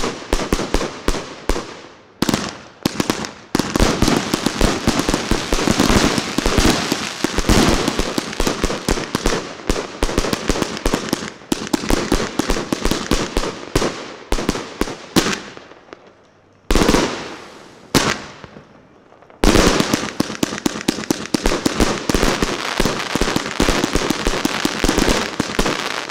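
A 168-shot Master Mind firework cake firing: a rapid, overlapping run of shots and bursting shells, with two brief pauses about two-thirds of the way through before it picks up again.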